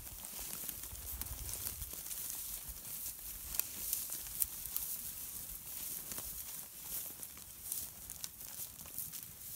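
Irregular crunching and crackling of steps on dry straw and stubble in a cattle yard, over a steady outdoor hiss. Wind rumbles on the microphone for the first couple of seconds.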